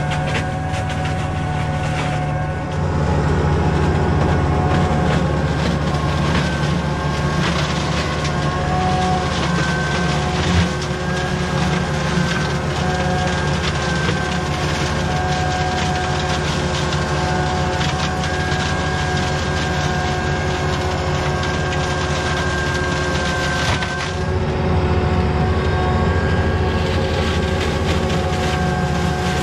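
Tractor engine running steadily while a tractor-mounted flail hedge cutter's head spins and chops through an overgrown hedge, a steady whine over a dense crackle of snapping branches.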